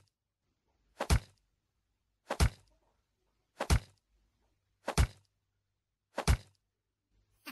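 Five heavy thuds, evenly spaced about every second and a quarter, with dead silence between them.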